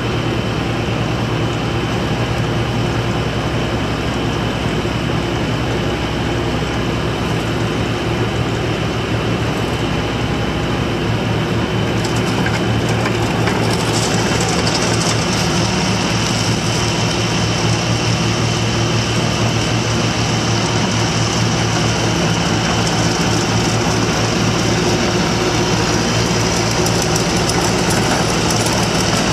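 1998 IHI 35J mini excavator's diesel engine running steadily under load as the machine drives on its tracks and swings its boom. About halfway through, a higher hiss joins in and the sound gets a little louder.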